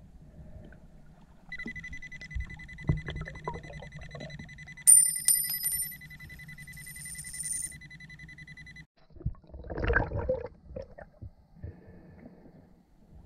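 Underwater metal detector, a Nokta Makro PulseDive, sounding a steady high electronic target tone for about seven seconds, starting about a second and a half in, with a higher tone and a few clicks over part of it. A short rush of noise from movement in the water follows around ten seconds in.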